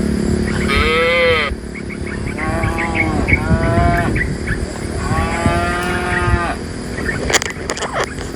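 Cattle mooing: about four rising-and-falling calls in quick succession, with a few sharp clicks near the end.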